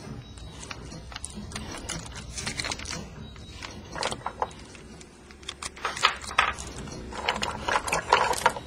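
Soundtrack of irregular mechanical clicking and clattering, sparse at first and growing denser and louder in the second half.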